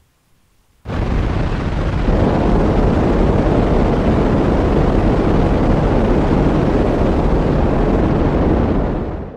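Cartoon rocket engine sound effect: a loud, steady rushing noise that starts suddenly about a second in and fades out near the end.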